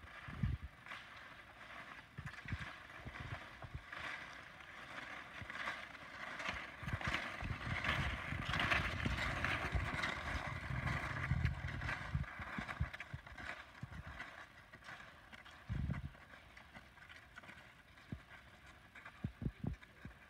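Cross-country skis sliding and scraping on snow with the repeated click and crunch of ski poles planted in a steady stride rhythm, loudest as several skiers pass close by about halfway through, then fading.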